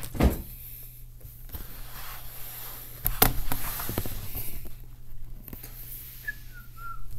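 Handling noise as a laptop's built-in camera and microphone are shifted on a desk: two sharp knocks, about a third of a second and three seconds in, with rustling between, over a faint steady low hum.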